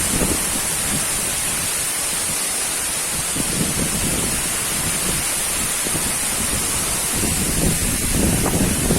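Steady rushing of a waterfall, with wind buffeting the microphone in the low end.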